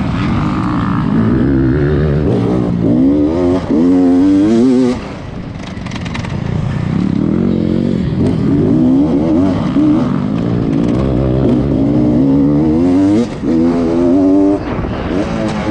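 Beta 300RR two-stroke enduro motorcycle engine at race pace, revving up hard in repeated rising pulls. The throttle is chopped sharply about five seconds in and again briefly near the end.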